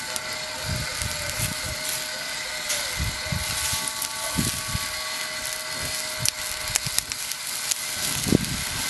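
Glaze dripping off basted beef onto hot charcoal, hissing and sizzling with flaring flames and a few sharp crackles, the loudest near the end. Under it runs the steady whine of the rotisserie spit's motor.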